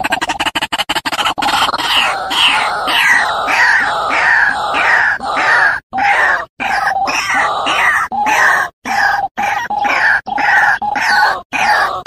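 White-breasted waterhen (ruak-ruak) calling: a fast pulsing rattle that gives way, about a second in, to a long series of repeated falling notes, two or three a second, broken by a few brief gaps.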